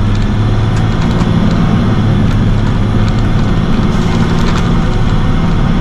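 Box truck driving at highway speed, heard from inside the cab: a steady low engine drone with road and wind noise, and a few light clicks.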